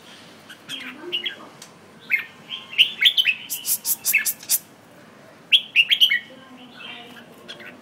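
Red-whiskered bulbul singing in short bursts of quick, chirpy notes. The bursts come about a second in, from two to four and a half seconds, and near six seconds, with runs of sharp, high ticks among them.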